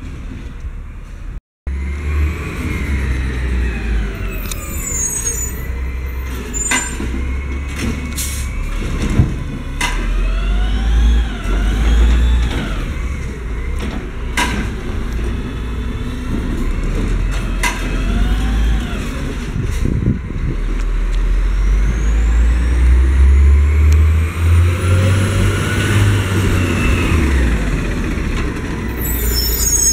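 Autocar garbage truck's natural-gas engine revving up and down as the Heil Rapid Rail automated arm lifts a trash cart and tips it into the hopper, with a rising and falling whine and several sharp clanks of the cart. Near the end the engine rises in pitch as the truck pulls away.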